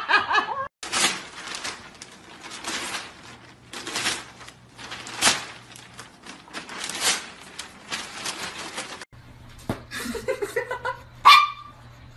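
Newspaper crinkling and tearing in repeated short bursts as a golden retriever chews at it. Near the end, faint voices and one short, sharp yelp-like sound.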